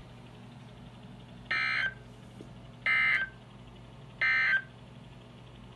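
Emergency Alert System end-of-message signal over NOAA Weather Radio: three short bursts of buzzy two-tone digital data, about a second and a half apart, marking the end of the alert message. A faint steady radio hum lies underneath.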